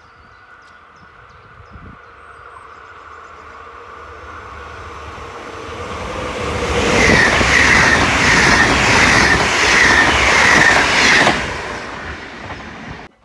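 Yellow NS double-deck electric passenger train approaching and passing close by on the near track. The rail noise builds over several seconds, runs loud for about four seconds with a regular pulse roughly every two-thirds of a second as the carriages go by, then falls away and cuts off abruptly just before the end.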